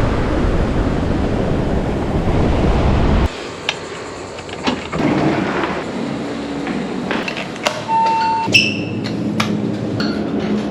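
Wind buffeting the microphone over beach surf, a loud low rumble that cuts off abruptly about three seconds in. A quieter space follows, with scattered clicks and knocks, two short tones and a low steady hum.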